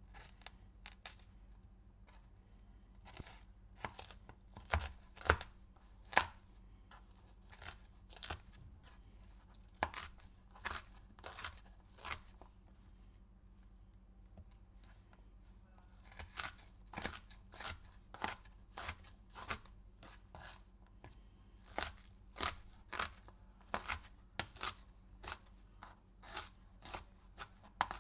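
Knife cutting through a pepper: a series of crisp, crunchy cuts, mostly one or two a second, with a lull of a few seconds about halfway through.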